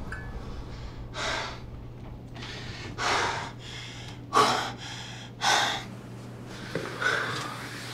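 A man's heavy, gasping breaths, about five loud ones at irregular intervals of one to two seconds, over a faint steady low hum.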